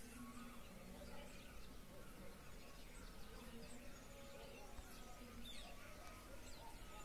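Faint birdsong: many short, high chirps from small birds, scattered over a steady background noise.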